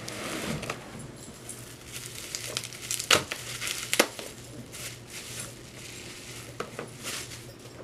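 Plastic bubble wrap crinkling and rustling as it is unwrapped from a small product, with a few sharp clicks of packaging being handled, the loudest about three and four seconds in.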